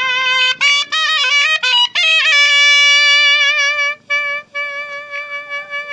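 Shehnai playing a traditional Kullu nati melody. It opens with a quick run of ornamented notes, then settles on one long held note that is broken briefly several times.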